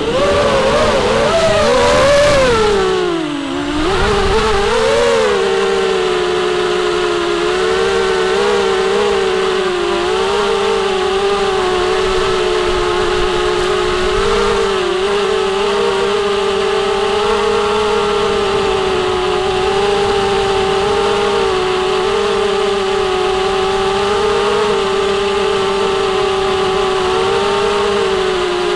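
Small FPV racing quadcopter (ZMR250 frame on a 4S battery), its brushless motors and propellers whining as it flies. The pitch swings up and down with the throttle for the first few seconds, drops sharply about three seconds in, then holds a fairly steady whine with small wobbles.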